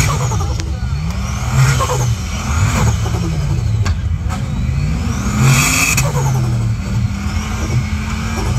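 Four-wheel drive's engine revving under load as it climbs a steep muddy bank, the revs rising and falling again and again. A high whine rises and falls over it twice.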